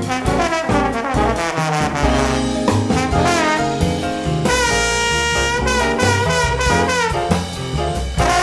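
Jazz background music led by brass horns over a steady beat, with a long held horn note about halfway through.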